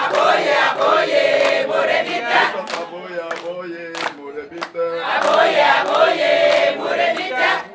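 A group of voices singing together in chorus, loud, with sharp strokes keeping a beat through the song.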